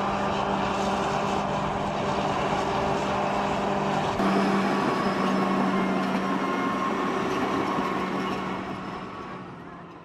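Large bulldozer's diesel engine running steadily under work. It gets a little louder about four seconds in and fades away at the end.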